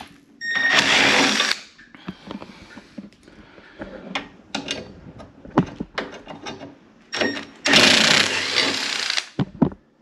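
Power drill-driver backing out the screws that hold a dishwasher door hinge. The motor runs twice, for about a second each time, once near the start and once near the end, with clicks and knocks of the bit and the metal hinge in between.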